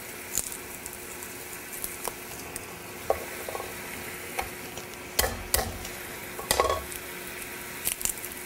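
Scallops sizzling steadily in a hot frying pan, with scattered small clicks and a few louder knocks about five to seven seconds in.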